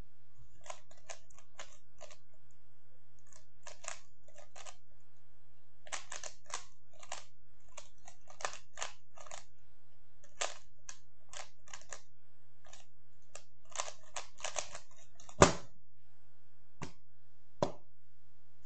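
Rubik's 3x3 cube being turned fast in a speedsolve: quick bursts of plastic clicking and clacking layer turns, with short pauses between them. About fifteen and a half seconds in there is one loud sharp knock as the solve ends and the timer is stopped, and another knock near the end.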